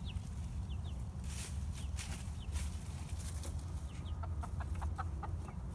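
Young Buff and Lavender Orpington chickens calling: scattered short, falling chirps, then a quick run of short clucks from about four seconds in.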